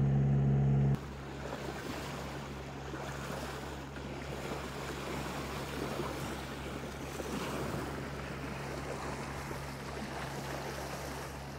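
A loud steady low drone cuts off about a second in. After that, sea water rushes and splashes around a sailing yacht, with wind noise on the microphone and a faint steady low hum underneath.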